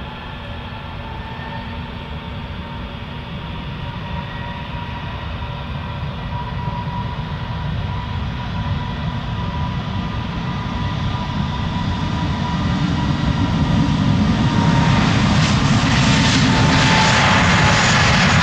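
Airbus A320neo-family airliner's jet engines at high power on its roll down a wet runway: a steady roar with a thin fan whine, growing steadily louder as the jet closes in, loudest over the last few seconds, when the whine dips slightly in pitch.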